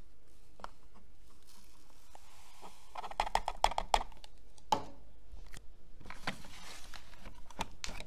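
Powdered laundry detergent poured from a plastic scoop into a washing machine's plastic detergent drawer: a gritty hiss with dense crackling of granules, loudest about three to four seconds in. Another stretch of hiss and crackle follows after about six seconds, with a few sharp clicks between.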